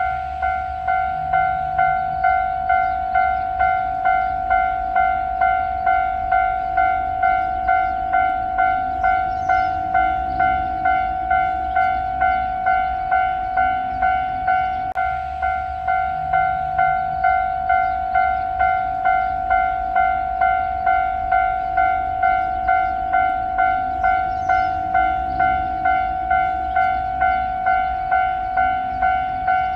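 Railway level-crossing warning bell ringing steadily, a little under two strikes a second, signalling that a train is approaching.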